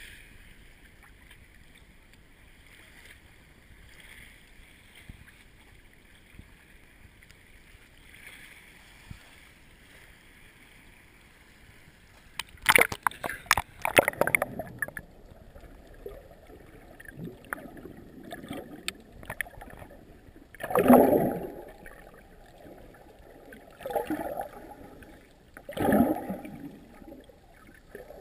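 Seawater moving around a GoPro camera. At the surface there is a faint steady wash of water. About twelve seconds in, a burst of splashing and crackling comes as the camera goes under. Underwater the sound turns muffled: several dull whooshing surges of water, the loudest about twenty seconds in.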